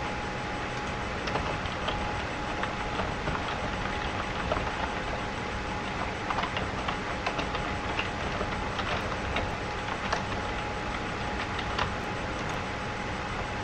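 Computer keyboard keys clicking in irregular runs of typing over a steady background hiss with a faint high whine.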